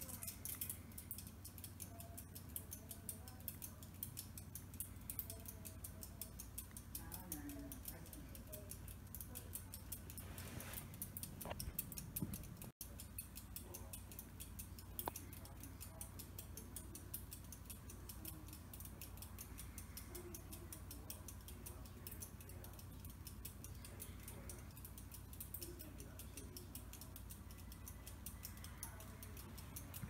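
Kenmore ceiling fan running, its motor giving a steady low hum under a fast, light ticking. The sound briefly cuts out just before the halfway point.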